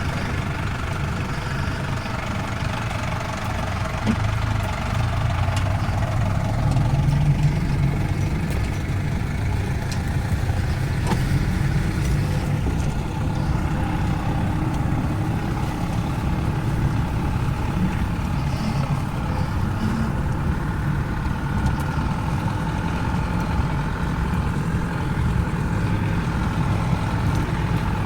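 Off-road vehicle's engine running steadily, a low hum that grows somewhat louder a few seconds in and then holds.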